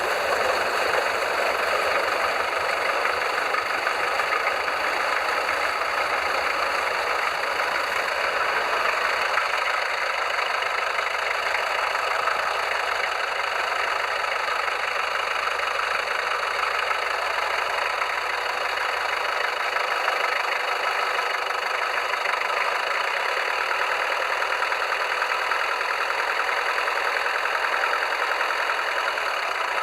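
Twin inboard engines of a Princess 32 motor cruiser idling steadily just after a cold start, heard at the stern exhaust outlets.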